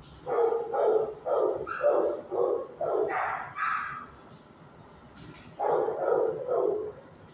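Dogs barking in a shelter kennel: a quick run of short barks through the first four seconds, a pause, then another burst of barks about six seconds in.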